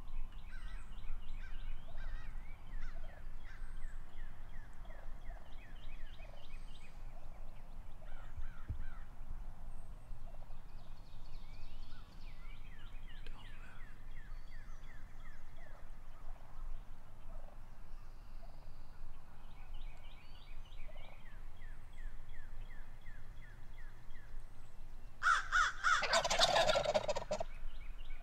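Eastern wild turkey toms gobbling again and again, each gobble a quick rattling series. Near the end a much louder sound, about two seconds long, covers them.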